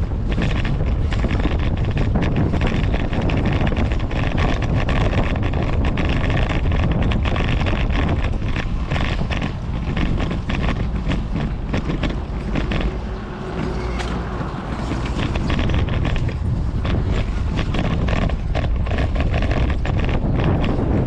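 Wind rushing over the microphone of a bicycle-mounted camera, mixed with a dense, continuous rattle and rumble from a fixed-gear bicycle rolling over brick pavers.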